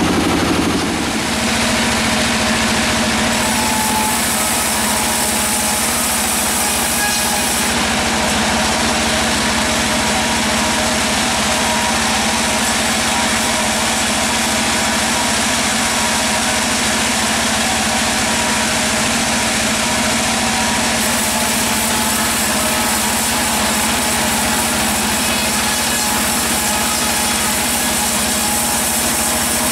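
Sawmill machinery running steadily with a constant engine-like drone.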